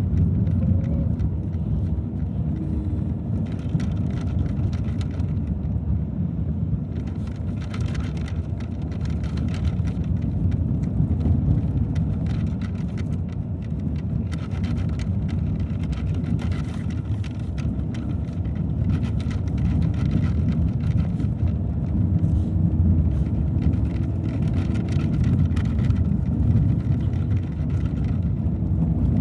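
Car driving on a snowy road: a steady low rumble of road and engine noise, with faint light ticks over it.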